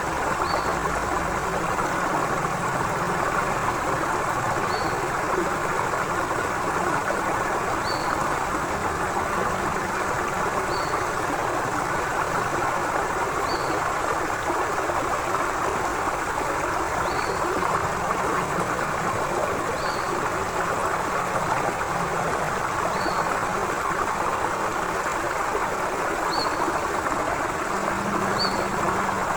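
A forest river's water flowing and rushing steadily, with a short high chirp repeating about every two to three seconds.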